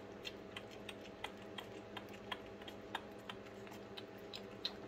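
Two-week-old puppy suckling at a baby bottle's nipple: quick, slightly irregular sucking clicks, about three a second, over a faint steady hum.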